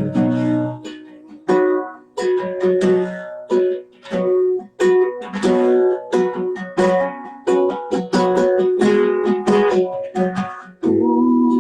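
Solo acoustic plucked-string instrument strummed in an instrumental passage between verses of a song, with chords struck in a steady rhythm and a chord held ringing near the end.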